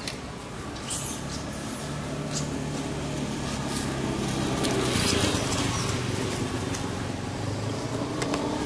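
A motor engine running steadily nearby, growing louder about halfway through and then easing off, with scattered light ticks and rustles.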